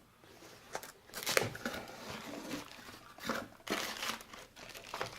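Packaging crinkling and rustling in irregular bursts as a cosmetics order is unwrapped by hand, with louder rustles about one and a half and three and a half seconds in.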